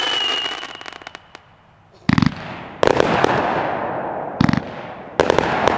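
Aerial shots from a 70-shot, 500-gram consumer firework cake. A fading whistle and a tail of small crackling pops die away, then after a short lull come four loud shell bursts, each trailing off in crackle and echo.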